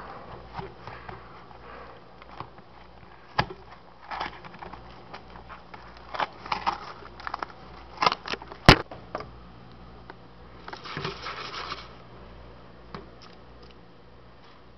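A Jiffy Pop pan being handled: its foil and label crinkle and the wire handle and pan scrape and click, with a sharp click a little past the middle and a longer crinkle about three seconds before the end.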